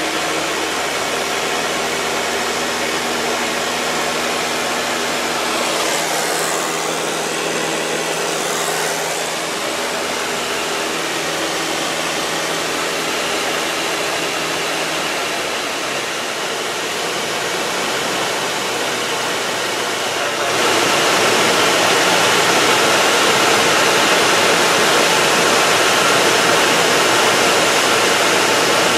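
Piston engine and propeller of a 1960s four-seat light airplane, heard inside the cabin in flight: a loud, steady drone. About twenty seconds in it steps up louder, with more rushing noise.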